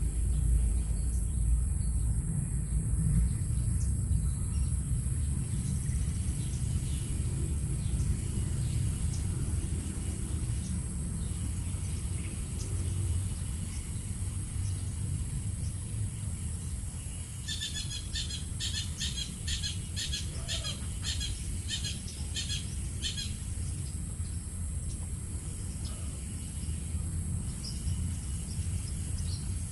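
Forest ambience: a steady high insect drone over a low rumble, with a bird giving a quick series of about a dozen chirps for some five seconds past the middle.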